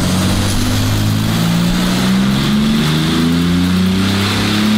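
9ff-tuned Porsche 997 Turbo S twin-turbo flat-six with a Capristo exhaust pulling under load on a chassis dyno during a power run. Its note rises steadily as the revs climb from about 1,400 to past 3,500 rpm.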